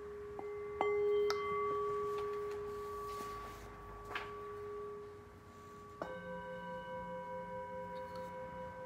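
Brass singing bowl struck with a suede-covered mallet, ringing on in long steady tones. It is struck twice about a second in, and again about six seconds in, starting a higher ring that pulses in and out two or three times a second.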